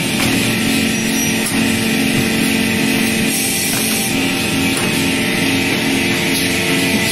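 Plywood veneer paving line running: a steady, loud mechanical hum with several held tones and no breaks.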